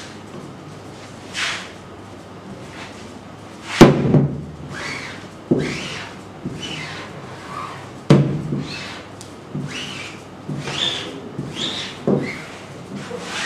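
A rubber squeegee dragged again and again across an inked silk-screen mesh, short scraping strokes about once a second, while the wooden screen frame knocks sharply against the printing table twice, about four and eight seconds in.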